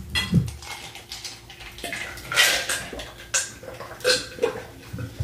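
Eating sounds at a close microphone: a utensil clicking and scraping against a food container, with chewing between, in short irregular bursts.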